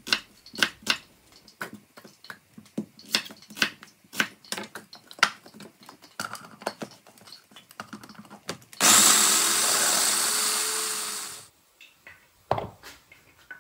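Small electric food processor chopping onions: a loud motor run of about two and a half seconds that starts suddenly and winds down. Before it come many light clicks and knocks, and a single thump follows.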